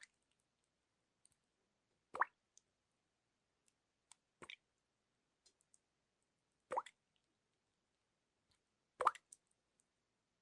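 Single water drops plopping, five in all, evenly spaced a little over two seconds apart, with faint ticks between them.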